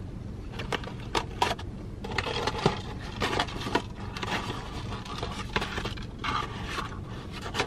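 Chewing a crispy chicken sandwich, with a few sharp clicks early on and crackly rustling and scraping of a cardboard box and paper wrapper being handled from about two seconds in.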